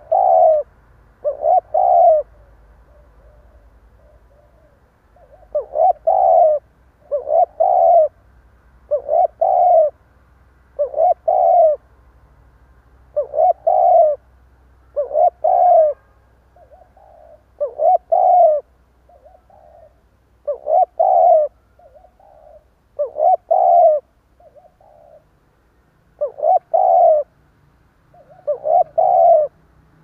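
Spotted dove cooing in short, clipped groups of notes, the stuttering coo, repeated every one to two seconds after a pause of about three seconds a few seconds in.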